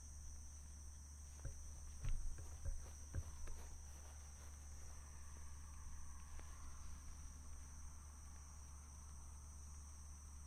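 Summer night insects trilling steadily at two high pitches, with a low rumble under them. A short cluster of knocks and thumps comes about two to three seconds in.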